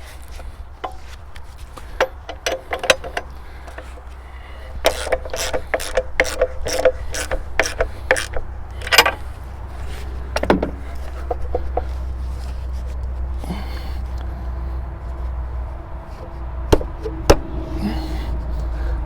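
Hand tools on steel mounting hardware: scattered clicks, then a dense run of rapid clicking and metal clinks, with two sharp knocks near the end, over a steady low hum.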